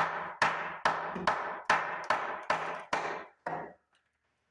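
Hammer strikes driving a cut-long 2x4 upward into a sagging doorway frame to lift it, about nine blows at a steady two to three a second, each ringing briefly through the framing. The blows stop about three and a half seconds in.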